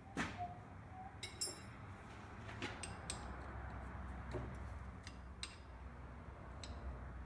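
Scattered clinks and knocks of metal workshop parts being handled, one with a short metallic ring about a second and a half in, over a low steady hum.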